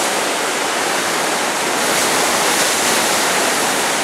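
River in flood, fast brown floodwater churning through rapids beneath a bridge: a loud, steady rush of water.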